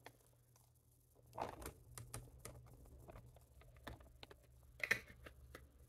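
Faint, irregular light ticking and tapping from a jar of dried thyme shaken out over an open plastic bag, beginning about a second and a half in.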